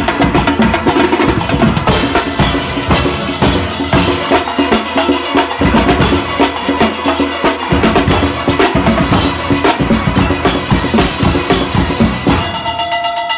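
Steelband engine room (rhythm section) playing a fast, driving rhythm on drum kit and percussion, with steel pans. About a second before the end the drums drop out briefly and a few held notes ring on.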